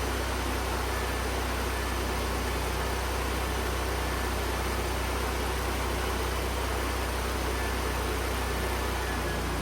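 Kohler CH23S twin-cylinder engine of a Lincoln Ranger GXT welder running steadily just after starting, a constant low hum; it now runs on fresh gas and new spark plugs after a no-start blamed on bad gas.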